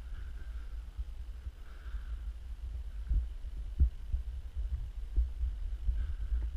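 Low rumble of a handheld GoPro being carried through an empty room, with a few dull thumps of footsteps on the bare subfloor about three, four and five seconds in.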